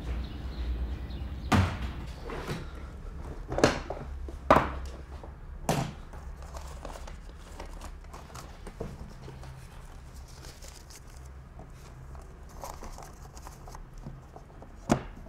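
A few separate knocks and thuds over a low steady hum, about four in the first six seconds and one more near the end.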